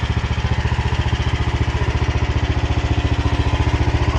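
Engine of a small hydraulic machine idling steadily with an even, fast chugging beat.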